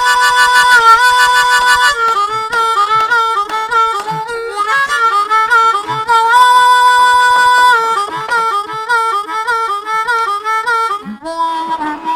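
Blues harmonica playing an instrumental break: long held, wailing notes alternating with quick runs of short notes.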